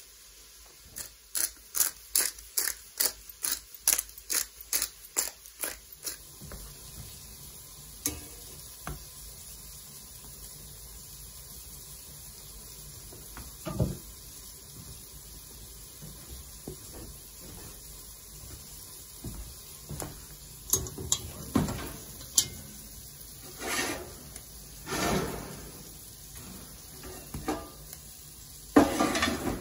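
Kitchen utensils at work: a quick, even run of utensil strokes against a bowl or board, about three a second for some five seconds, then scattered clinks and knocks of pots and dishes, loudest near the end.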